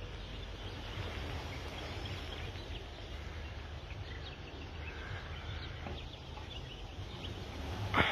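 Outdoor ambience: a steady low rumble with faint, scattered bird chirps, and a single sharp knock right at the end.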